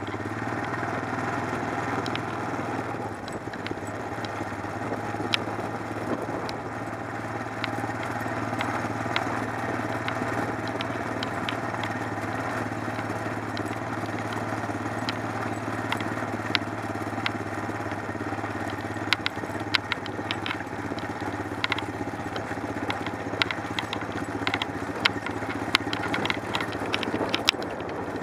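Wheeled dog-training rig rolling over a dirt track: a steady low hum under an even rolling noise, with clicks and rattles that come more often in the last several seconds as the track turns rutted and muddy.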